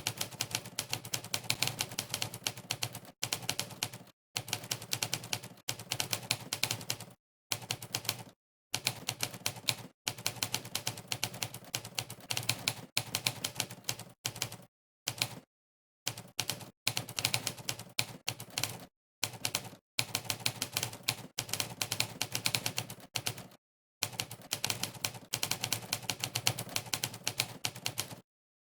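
Monkeytype's typewriter keypress sound effect, a sharp typewriter-key clack for each keystroke of fast touch-typing. The clacks come in quick runs, broken by many short moments of complete silence between bursts of typing.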